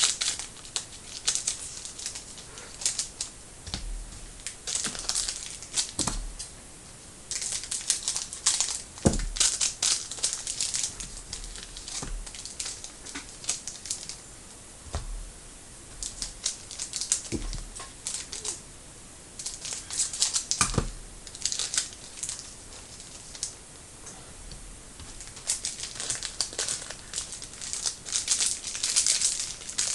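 Trading-card pack wrappers crinkling and tearing as packs are opened and the cards handled, in bursts of a few seconds at a time, with a few soft knocks in between.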